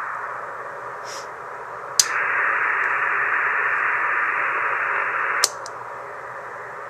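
Receiver band hiss from an ICOM IC-746 on 40-metre CW, passed through a homebrew SCAF-1 audio CW filter, with no signal in it. About two seconds in a switch clicks and the hiss turns louder and brighter. At about five and a half seconds another click brings back the duller, narrower hiss as the filter is switched in and out.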